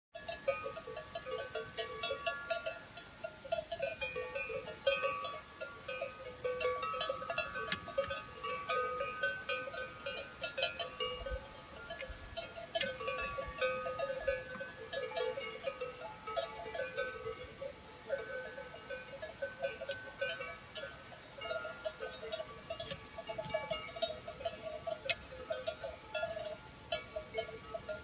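Many cowbells clanking at irregular moments, several bells of different pitches ringing over one another in a continuous jangle.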